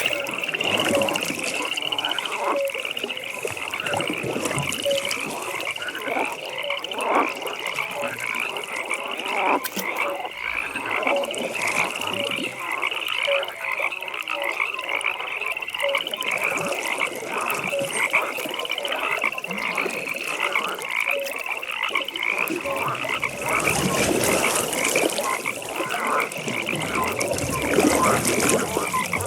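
Frog chorus: many frogs croaking at once without a break, with a high-pitched call repeating rapidly throughout over deeper croaks.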